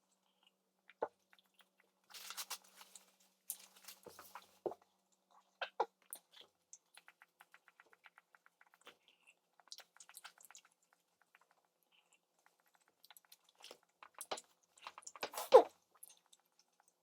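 Close chewing and wet mouth sounds of a man eating McDonald's chicken nuggets, with scattered small clicks and smacks. A short loud throat or mouth sound comes near the end.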